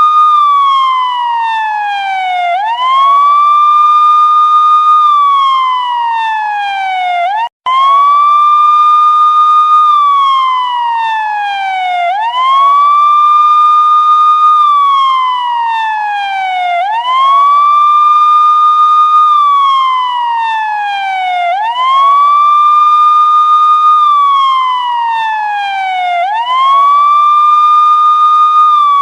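Police siren in a slow wail: each cycle rises quickly, holds briefly at the top, then falls slowly, repeating about every four and a half seconds. The sound cuts out for a split second about seven and a half seconds in.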